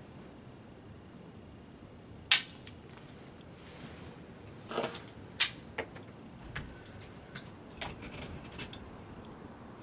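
A .22 pistol's hammer snapping once on a round that fails to fire, a misfire from a bad cartridge, followed by several lighter clicks and knocks as the pistol is handled.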